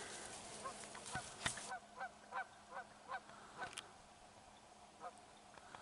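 A goose honking in flight: a run of about ten quick honks over some three seconds, then a single honk about five seconds in. A few sharp clicks fall among the first honks.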